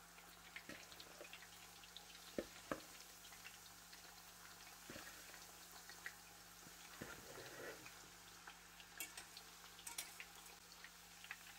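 Faint sizzling and crackling of plantain slices deep-frying in hot oil in a cast iron pot, with a few light knocks as a metal utensil stirs them.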